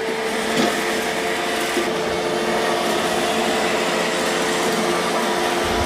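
iRobot Roomba Combo i5 robot vacuum running in spot mode as it picks up debris, a steady hum over an even hiss.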